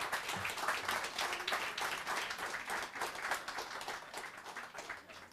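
Audience applauding after a sung performance, a dense patter of many hands clapping that thins out and dies away near the end.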